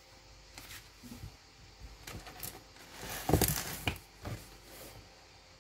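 Two kittens play-fighting in a cardboard box: scratchy scuffling and rustling of paws and bodies on the cardboard and blanket, with a louder thump and scuffle about three and a half seconds in.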